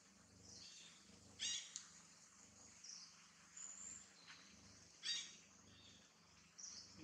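Faint, short, high-pitched animal calls, two of them about three and a half seconds apart, with a brief high whistle between, over a faint low hum.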